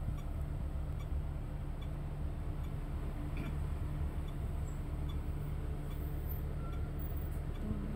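Steady low rumble of a bus heard from inside the cabin, with faint regular ticks about once every three-quarters of a second.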